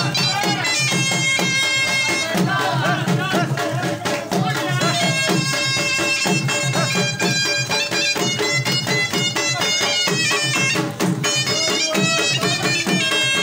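Pashto folk music for the Khattak dance: a shrill pipe playing long held notes over a steady, fast drum beat.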